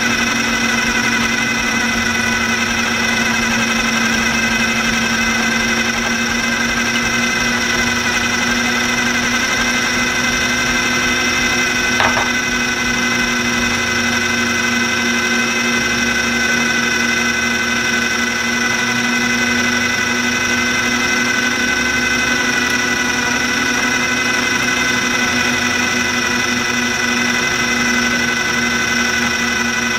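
Electric food processor motor running steadily at speed, blending basil into pesto, a constant motor whine with a steady hum beneath it. A brief click about twelve seconds in.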